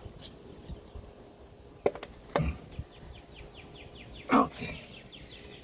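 A few sharp knocks and clunks from pipe and fittings being handled, the loudest about four seconds in. Behind them, from about halfway through, runs a rapid chirping of about five short falling chirps a second.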